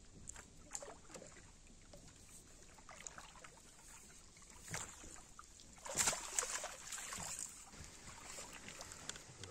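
Water splashing as a hooked common carp thrashes at the surface and is drawn into a landing net, with the loudest burst of splashing about six seconds in.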